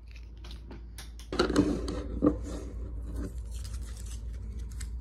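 Handling noise as a phone camera is moved and set down on a desk: a few small clicks, then a cluster of knocks and scrapes about a second and a half in, followed by light scratching and clicks.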